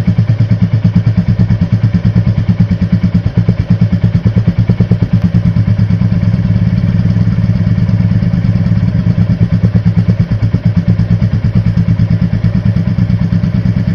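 Royal Enfield Classic 350's single-cylinder engine idling steadily, its exhaust giving a rapid, even thump.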